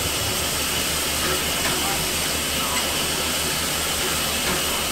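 Steady hiss of steam escaping from a standing Victorian Railways J class steam locomotive, with a low throbbing hum underneath.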